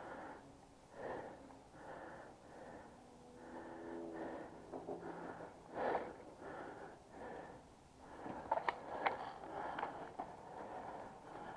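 A person breathing in and out close to the microphone, a breath about once a second, with a few sharp clicks about eight and a half seconds in.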